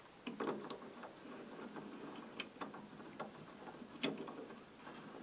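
Scattered light clicks and knocks of a steel hand reamer and other metal tools being handled at a metal lathe, over a low rustle. The sharpest click comes about four seconds in.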